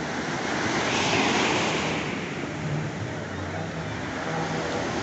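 Ocean surf breaking and washing in, swelling about a second in and again near the end, with wind on the microphone.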